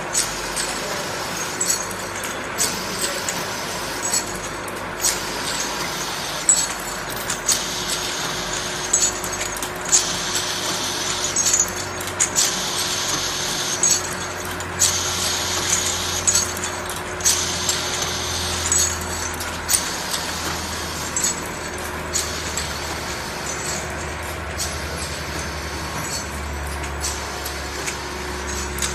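Glass ampoule filling and sealing machine running: a steady motor hum with a regular clack about every second and a half as the mechanism steps the ampoules along, and glass ampoules clinking against each other. A hiss comes and goes over it.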